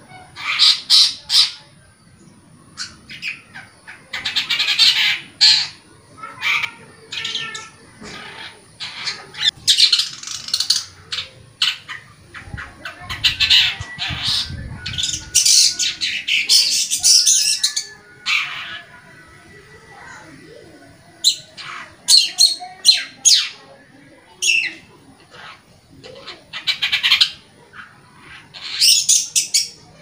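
Long-tailed shrike singing energetically in bursts of rapid, scratchy notes, each burst lasting a second or two, with short pauses between.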